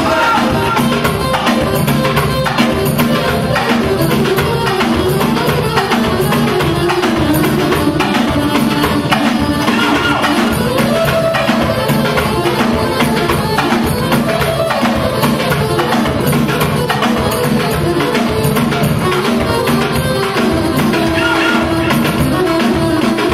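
Live manele music playing loud, with a steady fast beat and a lead melody line over it.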